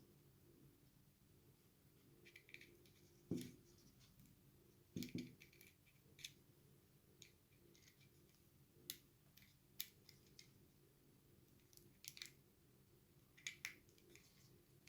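Faint, scattered clicks and taps from handling a Zoom H1n handheld recorder as an SD card is slotted into its side. A faint steady hum runs underneath.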